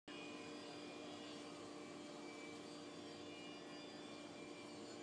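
CNC cutting machine with a round saw blade running: a steady mechanical hum with several steady higher tones over it.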